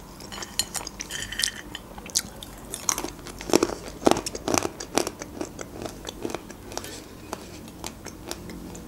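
Close-miked chewing of dried salted fish: irregular wet mouth clicks and smacks, thinning out after about six seconds.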